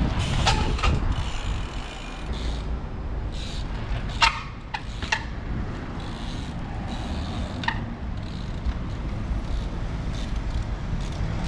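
Steady rumble of road traffic and wind, with a few sharp knocks and clicks from a trials bike hopping on a brick planter wall, the loudest about four seconds in.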